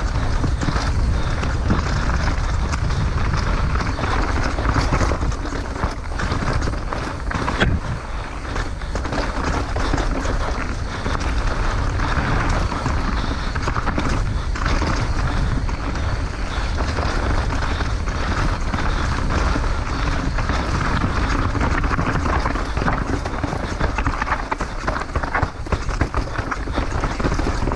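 Downhill mountain bike ridden fast down a bike-park trail, heard from a camera on the bike or rider: steady wind rush on the microphone, tyres on dirt and rocks, and constant clicking and rattling from the bike.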